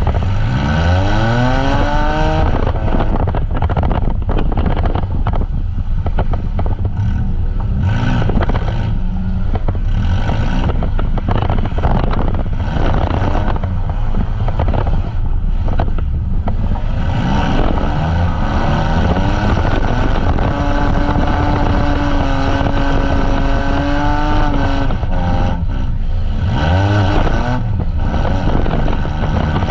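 Demolition derby vans' engines revving hard over a constant loud rumble of running engines. The pitch climbs in surges near the start and again after the middle, where one engine holds high revs for several seconds, with another surge near the end.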